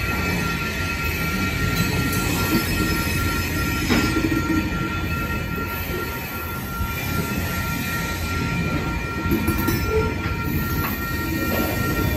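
Freight train's covered hopper cars rolling past, the wheels rumbling on the rails with a steady high-pitched wheel squeal over them. A sharp clank comes about four seconds in.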